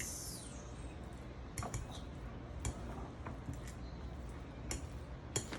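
Kitchen utensil working against a bowl: a short scraping swish at the start, then scattered light clicks and taps.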